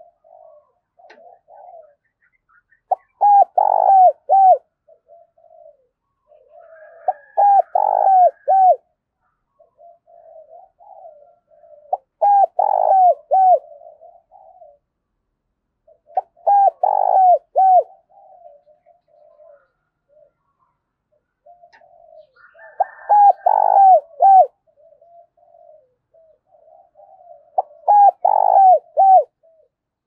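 Spotted dove (cu gáy) giving its repeated cooing song: six loud phrases of three or four quick coos, roughly every five seconds, with softer coos between them. It is a caged decoy bird calling to draw in wild doves.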